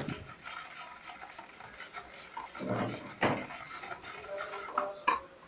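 A utensil scraping and knocking against a mixing bowl as cake batter is stirred, with a few sharper knocks in the second half.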